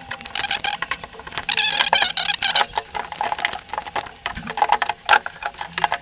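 Blue plastic protective tape being peeled and pulled off a glass refrigerator shelf, with a rapid, irregular crackling and crinkling.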